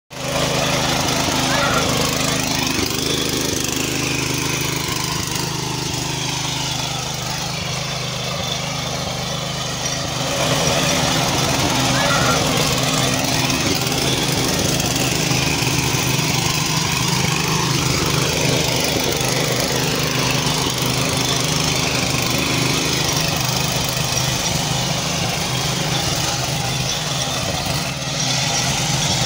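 7.5 hp petrol engine of a power weeder running steadily while its rotary tines till the soil.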